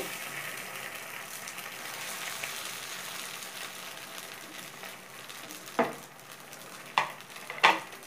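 Oil sizzling in a hot appam pan as stuffed bread rolls sit frying in its cups. Three sharp knocks come in the last couple of seconds, louder than the sizzle.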